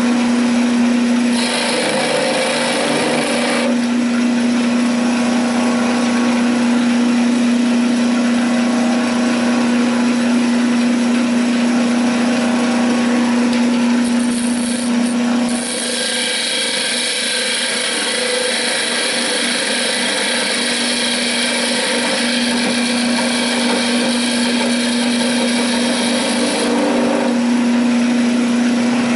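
Wood lathe running with a steady hum while a turning tool cuts a tenon on a southern yellow pine spindle. The hiss of the cut comes in briefly about two seconds in, then again from about halfway through for some ten seconds.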